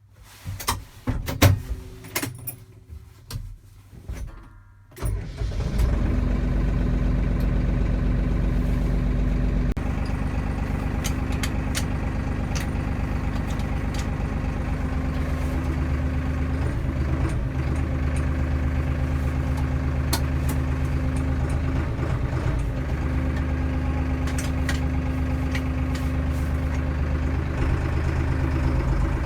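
A few knocks and clicks, then an engine starts about five seconds in and runs steadily at idle.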